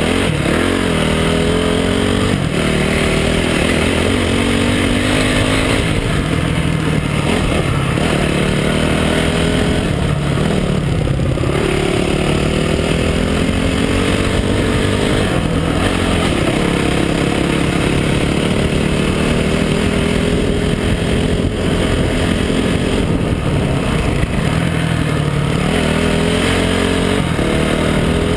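Honda CRF250X dirt bike's single-cylinder four-stroke engine running under way. Its revs rise and fall again and again with the throttle.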